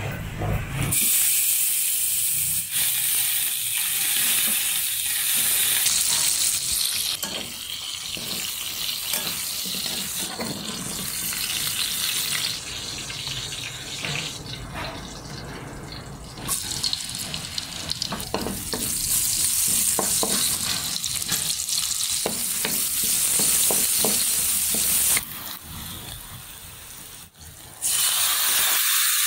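Pork belly sizzling as it fries in its own rendered fat in a wok, with a spatula stirring and scraping. The sizzle comes in several stretches that step louder and softer.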